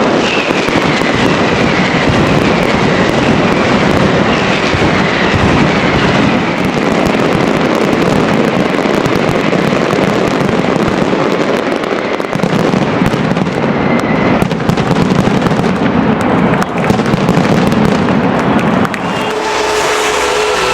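Fireworks going off in a dense, continuous barrage of bangs and crackle, with several falling whistles in the first few seconds. The barrage eases near the end.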